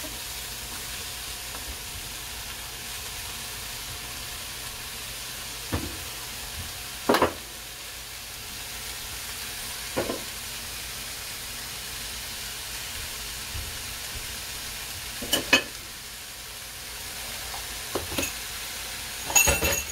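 Shredded cabbage, chayote and carrot sizzling steadily in a wok as they stir-fry. A few sharp knocks stand out here and there, the loudest about 7 and 15 seconds in.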